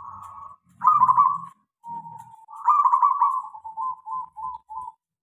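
A caged local zebra dove (perkutut) cooing. A rough opening coo is followed by two loud bursts of rapid trilled notes, then a run of short staccato coos near the end.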